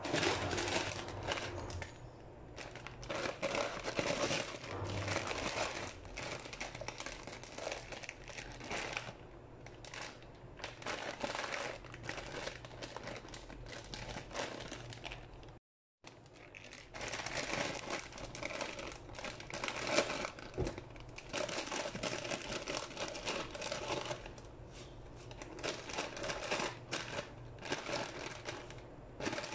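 Plastic salad bag crinkling and rustling as it is handled, and rocket leaves are shaken out of it into a glass bowl. There is a brief silent break about halfway.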